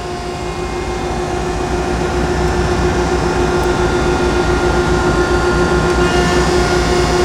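1969 Landis 1R universal cylindrical grinder running with its hydraulic system and grinding wheel on: a steady mechanical hum with a held whine, with the table feed traversing. About six seconds in, a brighter hiss joins.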